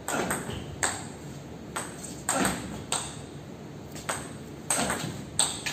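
Table tennis rally: the ball clicking off the rubber-faced paddles and bouncing on the table in turn, about two sharp ticks a second, each echoing briefly in the large hall.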